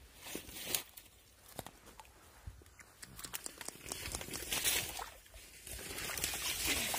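Dry reed stalks rustling and crackling, with many scattered sharp snaps and clicks that grow busier about four seconds in.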